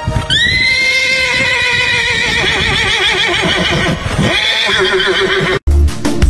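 Horse whinnying: one long, quavering neigh of about three and a half seconds, then a second shorter call that cuts off abruptly. Music with a heavy bass beat comes in right after, near the end.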